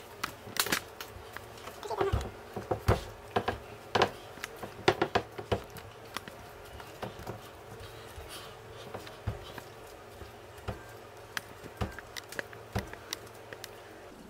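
Hands kneading pizza dough on a bamboo cutting board: irregular knocks and pats of the dough being pressed and folded against the wood, thicker in the first half and sparser later. The dough is being worked until it no longer sticks to the hands.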